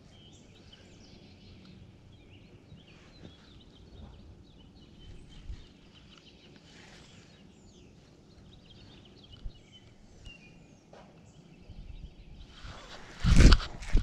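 Small birds chirping faintly over a quiet outdoor background. Near the end comes a loud, sudden rustling bump of the microphone being handled.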